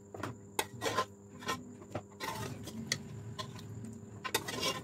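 A metal ladle knocking and scraping against the side of an aluminium pressure cooker pot, in irregular strokes, as pieces of boiled mutton are lifted out of the stock.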